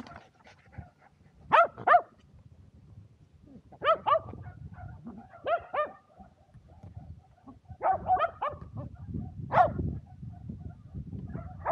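Shetland sheepdog barking in quick runs of two to four short, high-pitched barks, several runs through the stretch: excited play barking while waiting for the frisbee.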